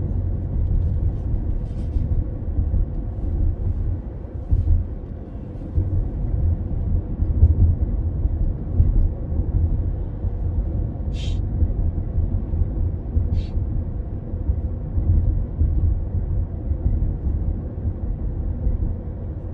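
Low, steady road and engine rumble of a car driving along at town speed, heard from inside the cabin, with two brief clicks about eleven and thirteen seconds in.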